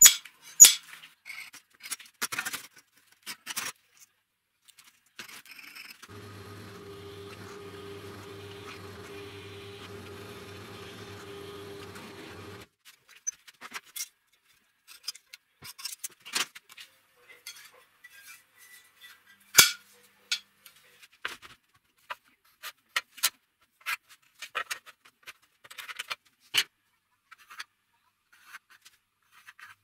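Scattered clicks, taps and light scrapes of steel parts and tools being handled on a workbench and in a vise. A steady low hum runs for about six seconds near the middle.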